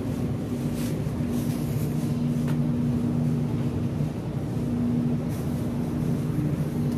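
Steady grocery-store background drone, with a few low hum tones that drop out and come back, and a couple of brief faint rustles.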